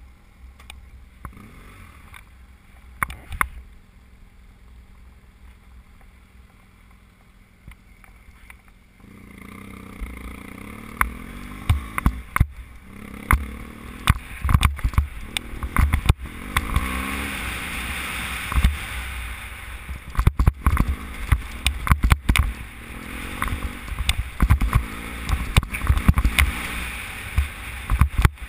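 BMW F800 GS parallel-twin engine running while the bike rides over a rough dirt track, with frequent short knocks and rattles from the bumps. It is quieter for the first several seconds, then louder from about nine seconds in, its pitch rising and falling with the throttle.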